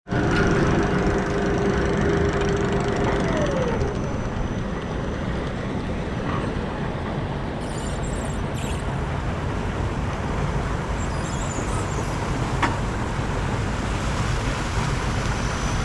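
Twin-chain lift of a raft water ride hauling the boat up the lift hill: a steady mechanical rumble, with a whine that slides down in pitch and stops about four seconds in. One sharp click comes near the end.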